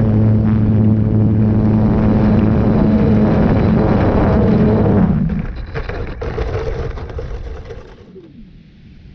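Electric motor and propeller of an RC Yak 54 running at full throttle with a steady low hum and rumble, then throttled back about five seconds in and winding down with a falling pitch. The motor lacks the power to lift the plane off the grass.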